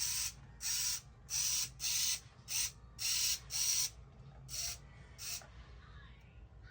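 Small electric motor and plastic gears of a repaired toy car whirring in short bursts, about ten times and roughly one and a half a second, each starting with a brief rising whine. The bursts stop near the end.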